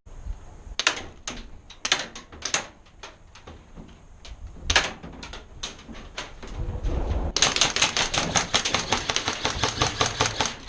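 Airsoft guns firing: scattered single shots in the first few seconds, then from about seven seconds in a long, rapid full-auto burst.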